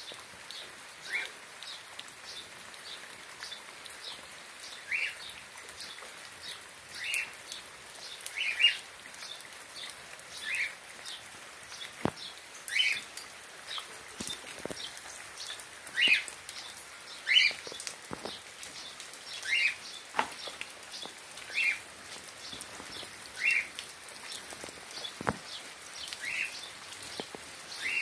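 Steady rain hiss with scattered sharp drips. Over it, a short rising call repeats every second or two, likely a bird.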